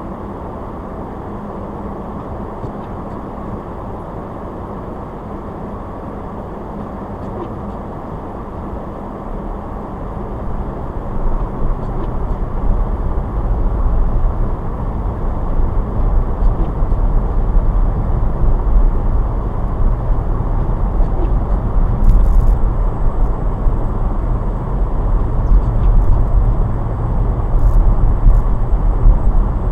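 A car driving, with steady road and engine noise. A low rumble builds about ten seconds in and stays louder, as the car picks up speed.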